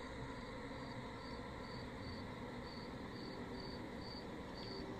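A cricket chirping steadily and faintly, about two short high chirps a second.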